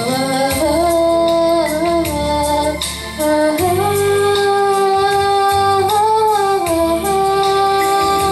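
A girl singing long held notes into a handheld microphone over a backing track with bass and a light beat.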